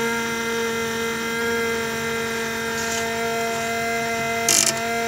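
Small electric motor on a home-built temperature controller running with a steady whine, still switched on because the temperature is below its 65-degree cut-off. A brief burst of noise about four and a half seconds in.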